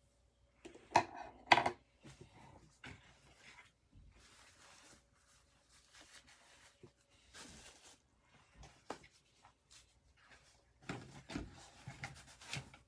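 Two sharp knocks about a second in, then scattered faint clicks, with a cluster of small knocks and rustling near the end: handling noise in a small room.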